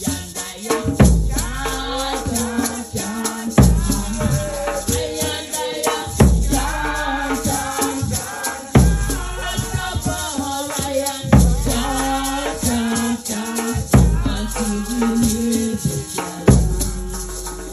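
Nyahbinghi drumming and chanting: singing over a hand-shaken rattle that keeps a steady shuffle, with a deep bass drum struck hard about every two and a half seconds.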